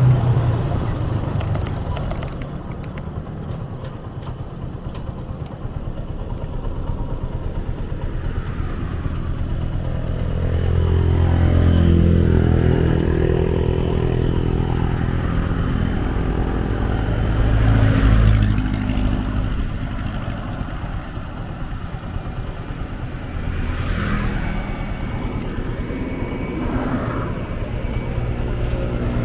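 Motorcycle engine running as the bike slows down, its note dropping, then idling while stopped. Wind rumbles on the chest-mounted microphone at times, loudest about two-thirds of the way through.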